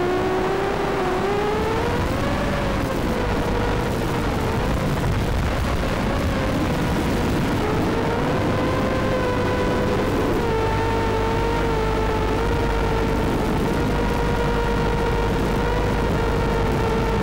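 FPV quadcopter's brushless motors and propellers whining in flight, picked up by a microphone on the craft itself. A buzzing pitch with overtones rises about two seconds in, wavers with the throttle, and holds fairly steady through the second half, over a low rushing noise.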